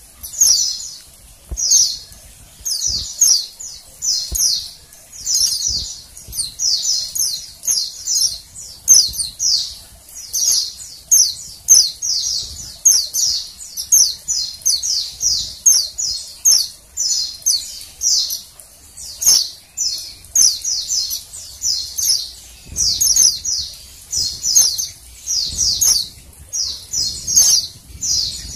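Female white-eye (pleci) calling: quick, high chirps in tight clusters of a few notes, repeated about once a second without a break. It is the female call used to stir a male white-eye into singing.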